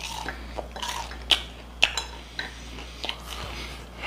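Chopsticks clicking and tapping against dishes and food containers at the table, with two sharp clicks about half a second apart a little over a second in, and a few softer taps.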